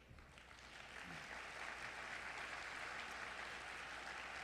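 Audience applauding, rising over the first second and then holding steady and fairly faint.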